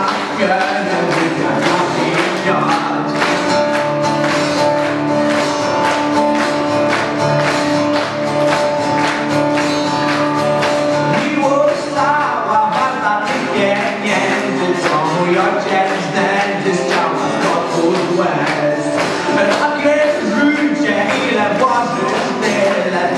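A young male vocalist singing live into a microphone over instrumental accompaniment with a steady beat, with long held notes for several seconds in the first half.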